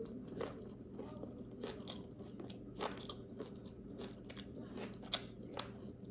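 A person chewing food close to the microphone: irregular soft crunches and wet mouth clicks, over a faint steady hum.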